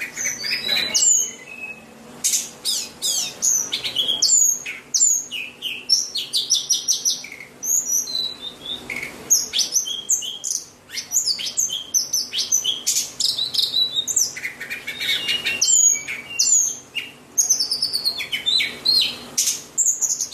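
White-rumped shama (murai batu) singing: fast, varied runs of high sweeping whistles and chattering notes, coming in bursts with short pauses between them.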